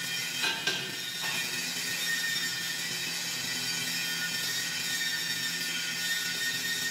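Steady high-pitched whine and hum of workshop machinery, with a few short knocks of steel being handled about half a second to a second in.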